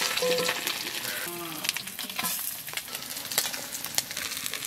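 Small fish sizzling in hot oil in an iron kadai, with sharp clicks of the metal spatula against the pan and plate as the fried fish are lifted out, the fish being done.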